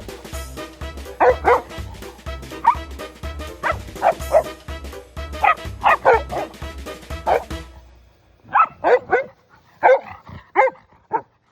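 Dog barking and yipping repeatedly over background music with a steady beat. The music stops about eight seconds in, and several more short barks follow on their own.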